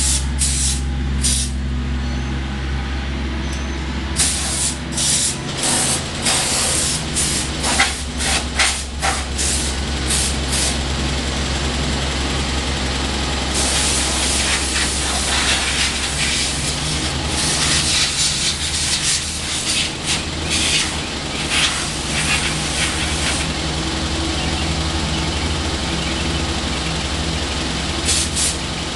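Compressed air hissing from a blow gun in quick short blasts and one long stretch of about ten seconds, blowing dirt off a riding mower. A steady engine hum runs underneath.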